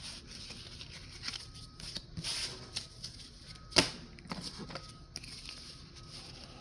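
Pokémon trading cards being handled: soft rustles and light clicks, with one sharper tap a little under four seconds in.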